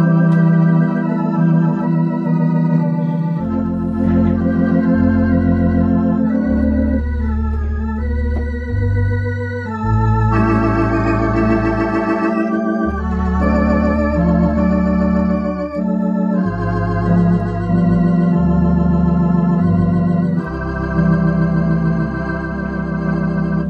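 Baldwin electronic organ playing an old-time popular tune: sustained chords with a wavering vibrato over low bass notes that change every second or two.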